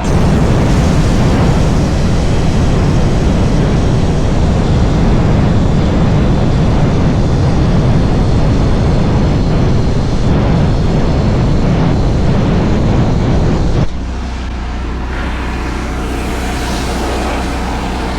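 Plasma cutter cutting through the mini excavator's steel floor plate: a loud, steady hissing rush that cuts off suddenly about 14 seconds in. A quieter, steady low hum of machinery carries on after it.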